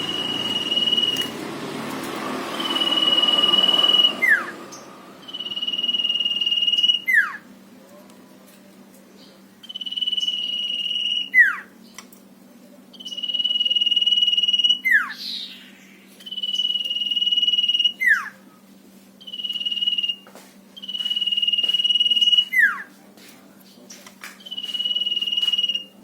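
Sirtu songbird whistling its 'nyiul' song: a series of about nine long, level, high whistles, each about a second long and coming every two to three seconds. Most end in a quick sharp downward slur.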